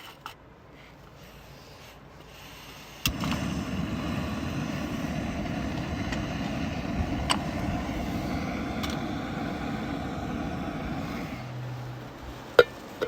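A Jetboil gas camping stove is lit with a sharp click, then its burner burns steadily for about eight seconds under a coffee percolator before it is turned off. Another sharp click comes near the end.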